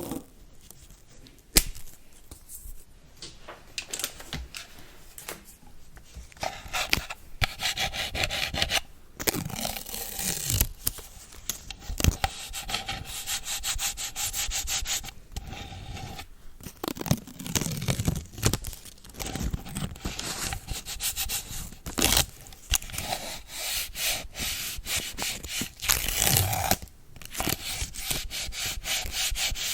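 ASMR cleaning of a phone or tablet: a brush rubbing over the device in quick repeated scrubbing strokes close to the microphone, with a few sharp taps.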